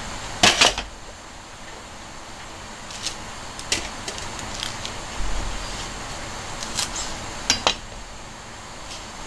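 Kitchen knife chopping king oyster mushrooms on a cutting board: two sharp knocks about half a second in. Then scattered light clicks and rustles as a plastic bag of shiso leaves is handled, and another pair of knocks near the end.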